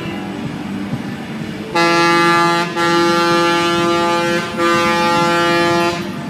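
Air horn sounding three long blasts on one steady pitch, starting about two seconds in, with the last two longer than the first. Quieter music plays underneath.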